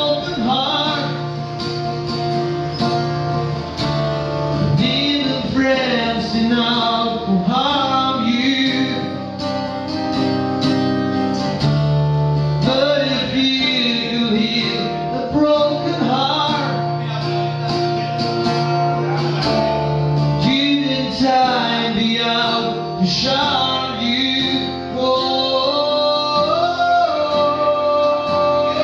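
A man singing to his own acoustic guitar, holding a long, wavering note near the end.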